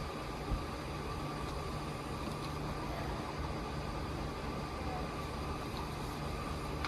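Steady mechanical hum of running machinery with a faint steady tone above it, and a single short knock about half a second in.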